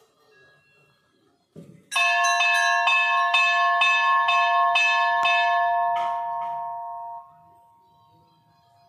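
Metal temple bell struck repeatedly, about twice a second, for about four seconds starting about two seconds in. It rings on with several steady tones, then drops away sharply about seven seconds in, leaving a faint lingering hum.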